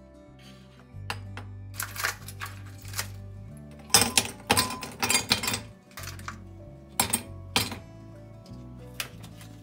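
Ice cubes clinking as they are dropped one after another into a glass mug, a quick run of loud clinks about four to six seconds in and a few single clinks after. Soft background music plays underneath.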